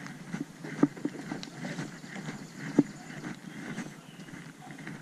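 Footsteps and irregular knocking on a dock's deck, with two sharper knocks, one about a second in and one just before the three-second mark.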